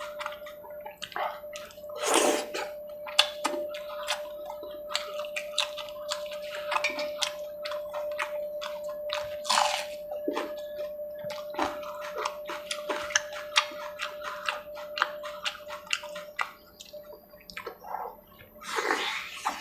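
Close-up mouth and hand sounds of chicken curry eaten with the fingers: wet smacking, chewing and squelching in quick succession, with a few louder bites. A faint steady tone hums underneath.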